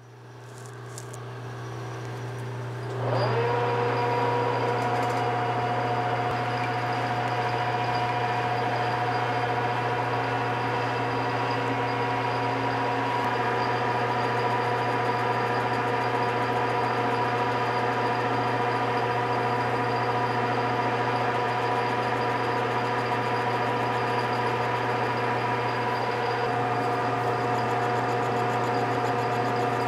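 An electric motor-driven shop machine starting up, building over about three seconds and climbing in pitch as it comes up to speed, then running steadily with a low hum and a steady whine.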